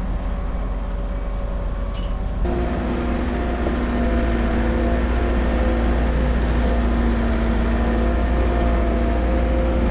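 A vehicle engine running. About two and a half seconds in, the sound gives way to a forklift engine running steadily close by: a low drone with a few steady tones.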